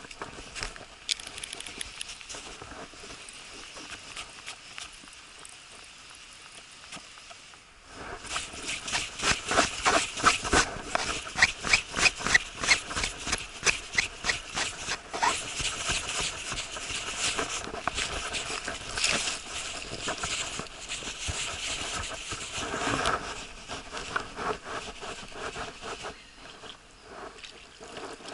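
Fishing reel being cranked close by, a rapid rhythmic clicking that starts about eight seconds in and eases near the end, with rustling over it.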